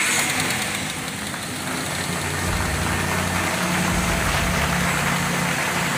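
Dodge Durango engine idling steadily right after starting. It now runs on a newly replaced battery, which has cured its failure to start. The low engine hum grows a little louder about two and a half seconds in.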